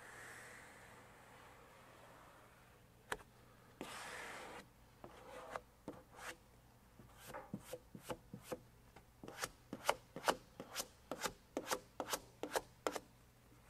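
A hand-held vinyl squeegee rubbed in short strokes over vinyl wrap film on a car door, pressing the stripe down. The strokes come thick and fast in the second half, about two or three a second.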